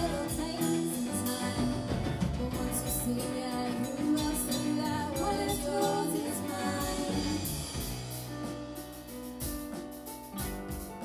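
Live band playing a song: women singing over electric guitars, keyboard and drum kit, with steady drum hits. The band drops in level for the last few seconds.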